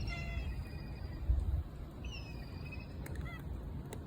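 Stray cats meowing: three short, high calls, over a steady low rumble.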